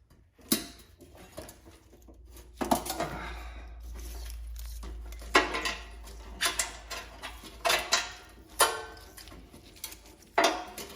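Metal tractor parts and hand tools being handled during reassembly: a series of sharp metallic clanks and clinks, with a few seconds of steadier scraping noise about three seconds in.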